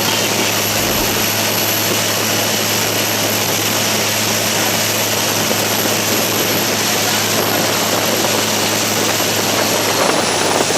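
Steady drone of a river passenger boat's engine running at speed, under a constant rushing noise of wind and water.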